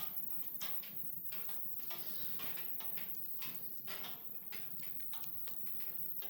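Wood fire crackling: irregular sharp pops and snaps over a steady low rush.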